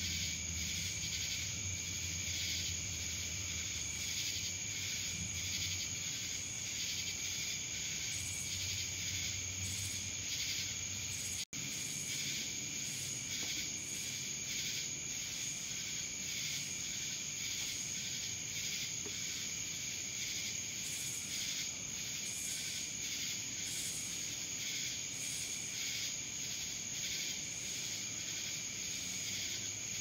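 Night chorus of singing insects, which the uploader takes for cicadas: a steady high-pitched trill overlaid with rhythmic pulsing about twice a second. The sound cuts out for an instant about eleven seconds in.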